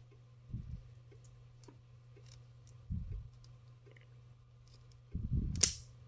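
Long-nose pliers crimping the small metal lock of a BNC connector onto coax cable: dull handling bumps about half a second in, at about three seconds and again after five seconds, with a sharp metallic click near the end, the loudest sound. A steady low hum runs underneath.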